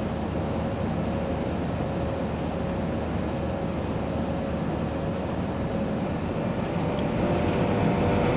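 Airbus A320-200 cabin noise in flight: the steady roar of the jet engines and airflow, heard through the cabin from a seat over the wing, with a faint steady hum. It grows a little louder near the end.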